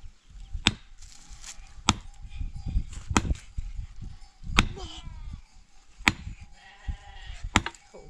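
Six sharp tool blows at an even pace, about one every second and a half, with sheep bleating twice in the second half.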